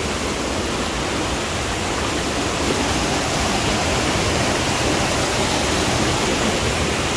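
Steady rush of a mountain stream cascading over boulders in a small waterfall.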